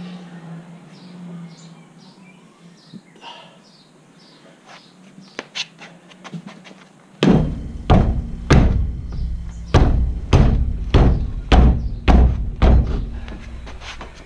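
Boot kicking the tyre of a Holden Commodore's alloy wheel, which is stuck to the brake rotor: about ten heavy thuds, a little under two a second, starting about seven seconds in.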